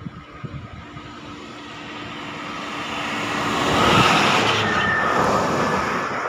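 A bus approaching along the road and passing close by, its engine and tyre noise growing steadily louder and loudest about four seconds in.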